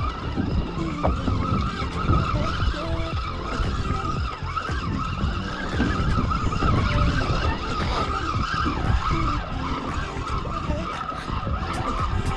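Penn spinning reel being cranked steadily against a hooked fish, its gears giving a wavering whirr, over a heavy uneven low rumble. Light ticks come in near the end.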